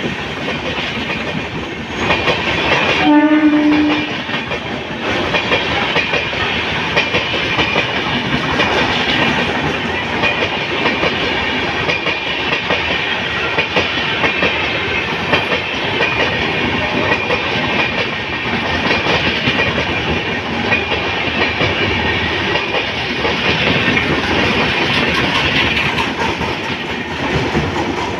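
Indian Railways LHB passenger coaches passing at high speed: a steady rush of wheels on rail with a rapid clickety-clack over the rail joints. A short horn-like note sounds about three seconds in.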